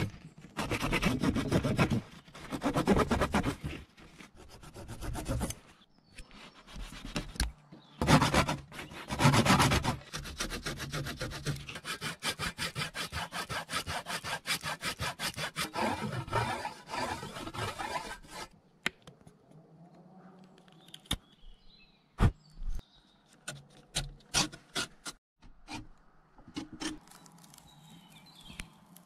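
Hand tool cutting wood in long rasping strokes, then a fast, even run of short strokes. In the last third, quieter scattered sharp wooden clicks and knocks.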